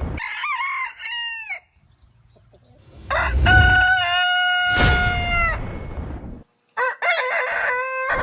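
Roosters crowing one after another: a short crow, then after a pause a long drawn-out crow of about three seconds, then after an abrupt cut another crow beginning near the end, each at a different pitch.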